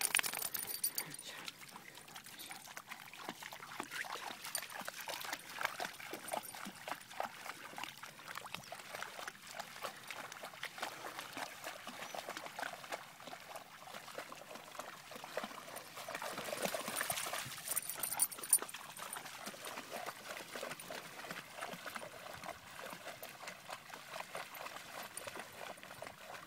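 Dogs wading through shallow lake water: light, irregular splashing and trickling, a little louder about two-thirds of the way in.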